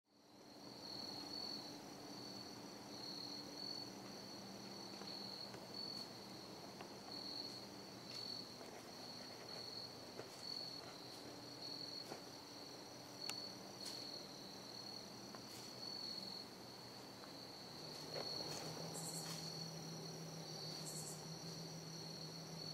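Insects, crickets by their sound, chirring in a steady, high-pitched, slightly pulsing chorus, with a faint low hum underneath and a few soft clicks.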